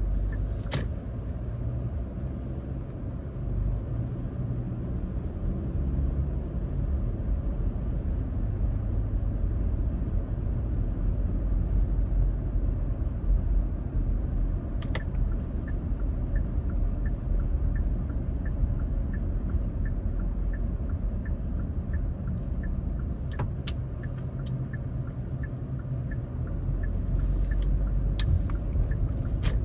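Steady low rumble of tyres and engine heard from inside a car driving along a quiet street. Through the middle there is a light, regular ticking, a little under two ticks a second.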